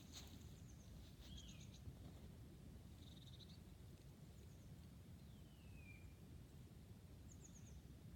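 Faint bird calls over a low steady rumble: short trills, a descending whistle around the middle, and a quick run of chirps near the end.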